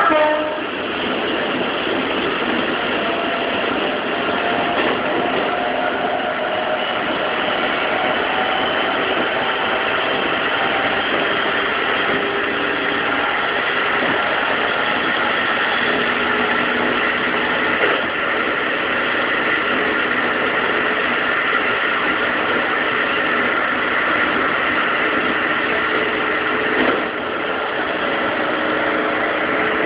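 Keikyu 2100-series electric train running at speed through a tunnel: a loud, steady rumble of wheels on rail and running gear, enclosed by the tunnel walls, with a brief louder swell near the end.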